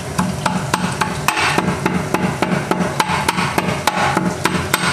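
Steel pestle pounding whole black and green cardamom pods and a clove in a stainless steel mortar: sharp metallic clinks at about four strikes a second, coarsely crushing the spices.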